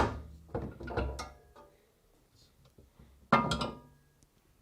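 Refrigerator shelves being lifted off their supports and out of the fridge, knocking and clunking: one knock at the start, a few more about a second in, and another clatter with a short ringing about three seconds in.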